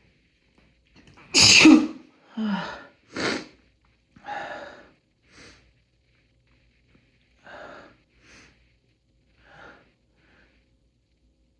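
A man sneezes loudly about a second and a half in, with two shorter bursts close behind. Several short, quieter breaths follow at intervals.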